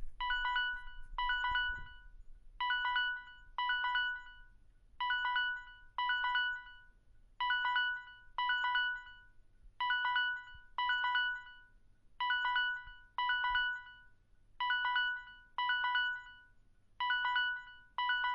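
Samsung Galaxy phone reminder notification sound: a bright chime sounded twice in quick succession, each ringing briefly and fading, the double chime repeating about every two and a half seconds.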